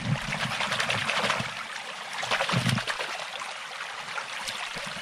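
Hands being washed in a small stream: water trickling and splashing over the hands and stones.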